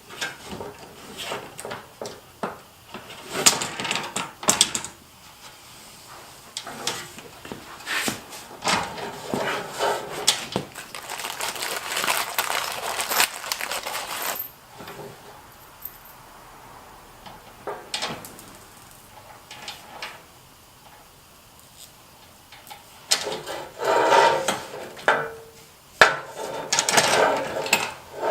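Irregular clicks, clinks and knocks of small hardware and plastic parts being handled while fitting a front splitter to a car, with longer stretches of handling noise about halfway through and again near the end.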